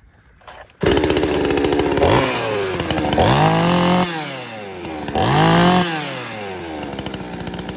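Two-stroke petrol chainsaw engine comes in suddenly and loud about a second in, then is revved hard twice with the bar on a log, the pitch climbing and falling back each time. The engine runs freely but the chain does not cut, because the chain has slipped off the drive sprocket.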